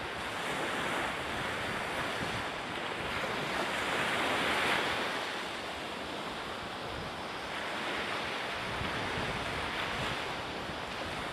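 Rushing water and wind as a racing maxi-trimaran's hulls cut through the sea at speed, throwing spray, with wind buffeting the microphone. The rush swells louder about four to five seconds in.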